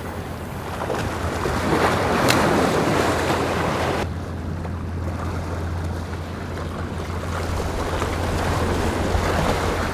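Sea surf washing and splashing against the rocks of a stone jetty, swelling twice, loudest about two seconds in, with wind rumbling on the microphone.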